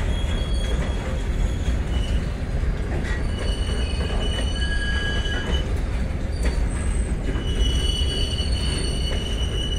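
Ballast hopper wagons of a freight train rolling past: a steady rumble of steel wheels on rail, with high-pitched squeals from the wagons that rise and fade, the longest lasting a few seconds each.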